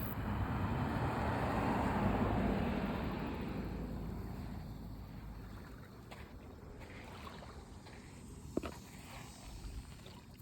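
A road vehicle driving past: its tyre and engine noise swells to a peak about two seconds in, then fades away over the next few seconds. A brief knock sounds near the end.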